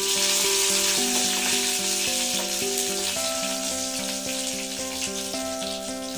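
Hot oil sizzling steadily as a tempering of mustard seeds, cumin and curry leaves fries in a pan, stirred with a wooden spatula. Background music with held notes plays underneath.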